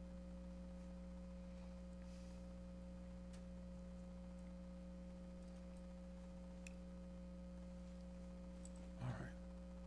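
A steady low electrical hum, several fixed tones together, from the meeting room's sound system.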